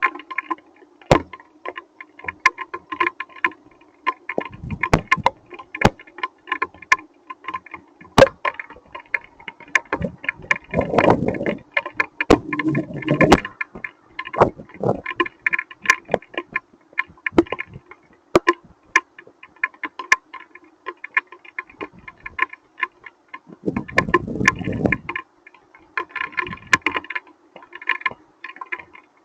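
Hailstones striking a hard surface as a dense, irregular patter of sharp clicks, with a few louder low rumbles mixed in.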